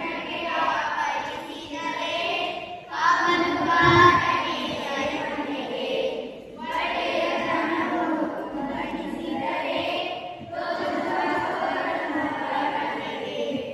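A group of voices singing a song together, in phrases of a few seconds each with short breaks between them.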